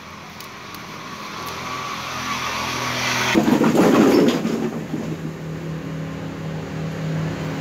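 A motor vehicle's engine close by. The noise grows louder over the first three seconds, rises to a rough, loud peak about three and a half seconds in, then settles to a steady low hum.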